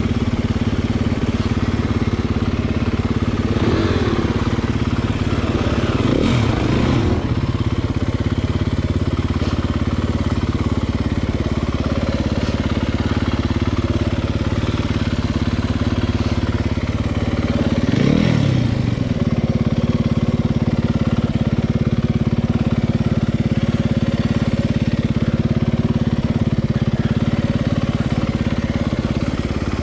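Dirt bike engine running steadily under way on a trail. Its pitch swings up and down briefly a few seconds in, again shortly after, and once more about 18 seconds in, as the throttle is opened and closed.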